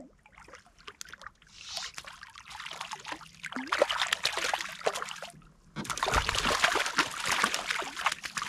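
A hooked brook trout thrashing and splashing at the surface of the water, in two spells of splashing with a short lull about five seconds in.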